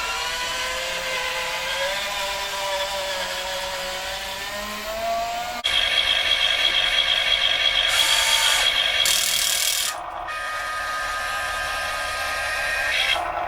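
Small electric motors of radio-controlled construction models whining. The pitch glides slowly up and down with the throttle, then jumps to a louder, steadier whine about halfway through and dips briefly about three-quarters of the way in.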